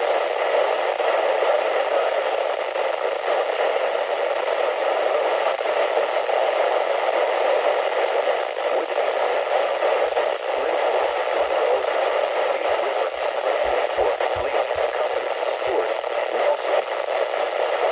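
Steady hiss of static from a NOAA weather radio receiver.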